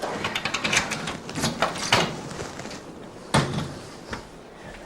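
A front door being unlocked and opened: a quick run of rattling clicks, then one loud knock about three and a half seconds in.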